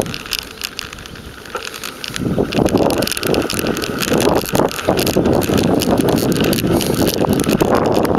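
Handlebar-mounted camera on a bicycle picking up a dense rattle and rumble of knocks from the bike riding over the road surface. It is quieter for about the first two seconds, then gets louder as the bike climbs a steep slope.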